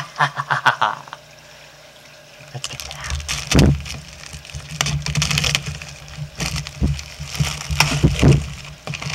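Clear plastic bag crinkling and rustling in irregular bursts as a vinyl toy inside it is handled in its cardboard box, starting about two and a half seconds in. A couple of dull knocks sound against the box.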